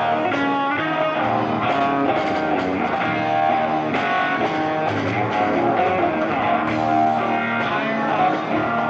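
Live rock music, an instrumental passage: electric guitar playing held notes and chords that change about once a second, over bass guitar and drums.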